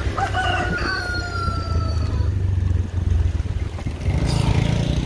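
A rooster crowing once: one long call held for about two seconds and sagging slightly in pitch at the end, over a steady low rumble.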